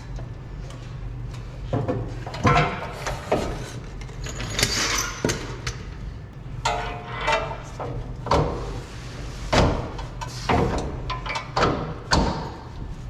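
Irregular metal clanks and knocks from hand work on a pickup truck's front suspension, a dozen or so hits spread out, one ringing briefly about seven seconds in.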